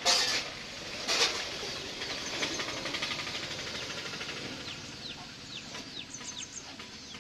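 Birds chirping: a run of short, falling chirps, a few a second, with a quick high trill about six seconds in. Two brief noisy bursts come at the start and about a second in.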